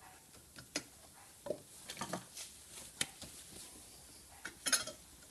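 Light metal clicks and clinks from handling the cutting head of an on-car brake lathe, its parts knocking together in a handful of separate taps, with a louder cluster of clicks near the end.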